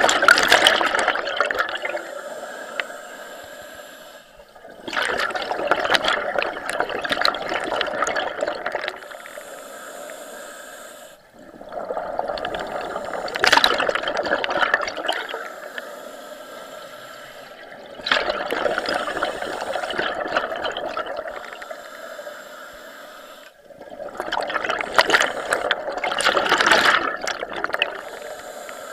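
Scuba diver breathing through a regulator underwater: five surges of exhaled bubbles, about one every six seconds, each starting loud and fading away before the next breath.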